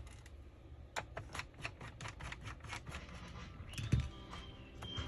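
Rapid small clicks and taps of plastic and metal parts being handled as a laptop is taken apart, with its keyboard and screws coming off. A dull thump comes about four seconds in, and a faint thin high tone starts just before it.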